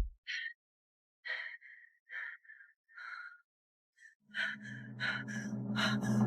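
A person's short gasping breaths, four or five in a row. About four seconds in, dark dramatic music with a low drone comes in and builds.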